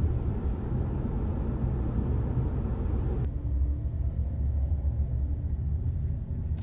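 Steady low road rumble of a vehicle being driven, heard from inside; the lighter hiss above it drops away abruptly about three seconds in.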